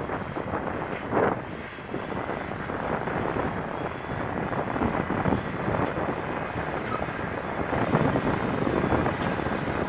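Gusty wind buffeting the microphone over the steady drone of a John Deere 8370R tractor working the field, pulling a leveller.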